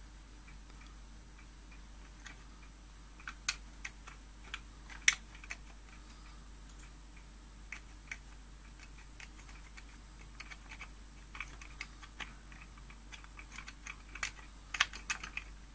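Keys being pressed on a Commodore 128 keyboard: scattered single clicks at an uneven pace, with a quicker run of presses near the end.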